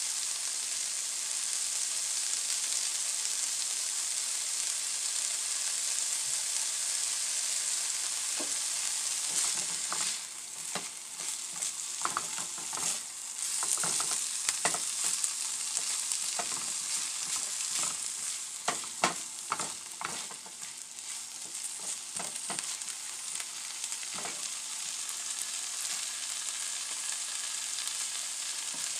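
Diced bologna, carrot, onion and jalapeño sizzling steadily in a nonstick frying pan. For about fifteen seconds in the middle, a spatula scrapes and knocks against the pan as the mixture is stirred.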